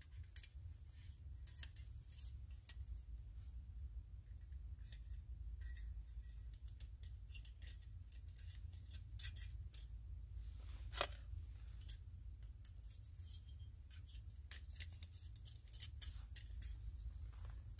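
Small metal clicks and scrapes, irregular, as the folding metal panels and pin of a Firebox Nano pocket stove are handled and fitted together.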